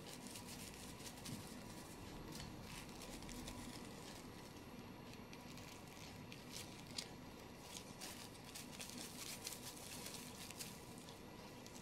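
Faint rustling and crinkling of paper tea bags and their tags being handled, with scattered small ticks, the sharpest about seven seconds in.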